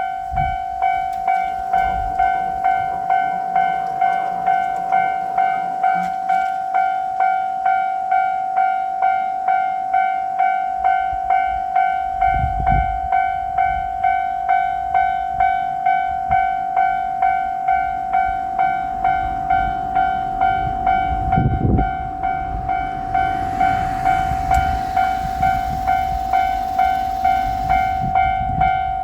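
Japanese railroad crossing bell ringing steadily, an evenly repeated electronic ding about one and a half times a second. In the second half the rumble of a JR Shikoku Anpanman diesel railcar passing over the crossing rises under the bell.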